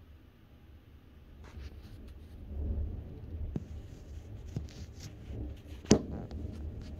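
Low rumble of distant thunder building about a second and a half in and rolling on. A few sharp clicks and knocks from the camera being handled sound over it, the loudest near the end.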